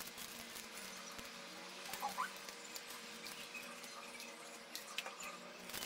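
Faint scratching and small clicks of hands handling a cloth doll and its small woven straw hat while it is hot-glued on, over a low steady hum.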